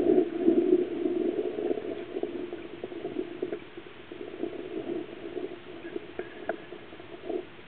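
Bubbling water recorded under water: a steady muffled gurgle with scattered clicks, loudest in the first second or so.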